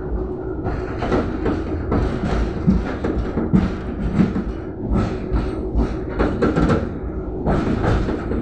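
Tram car running along the rails, heard from inside the car: a steady rumble with irregular knocks and rattles of the wheels and body, and a faint steady hum beneath.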